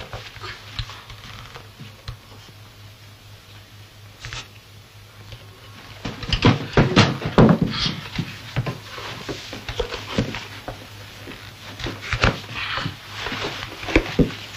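Leather shoes being handled and put on: irregular knocks, scuffs and rustles, busiest in the middle and again near the end, over a faint low hum.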